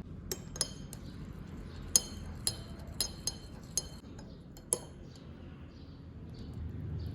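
Kitchenware clinking: about eight sharp clinks with a glassy ring, spread over the first five seconds, the loudest about two seconds in.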